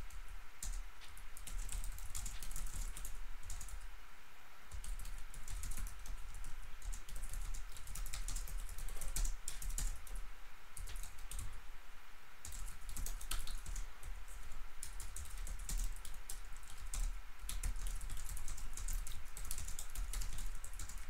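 Typing on a computer keyboard: a run of quick, irregular key clicks.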